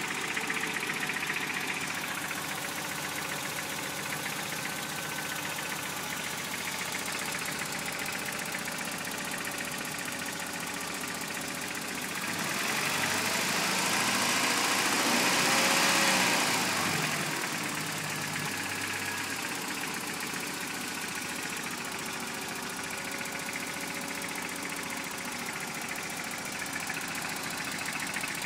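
Freshly rebuilt Toyota 22RE 2.4-litre four-cylinder engine idling with a knocking sound that worries its owner, revved up once about halfway through and settling back to idle.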